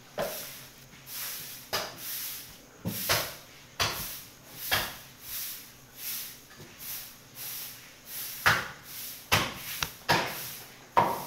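Butcher's knife slicing through a beef hindquarter in repeated short strokes, about one to two a second, each with a scraping hiss. Several sharp knocks fall among the strokes.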